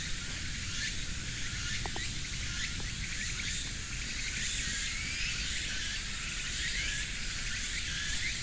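Outdoor woodland ambience: a steady insect chorus with many short, high chirps over it, and a low rumble underneath.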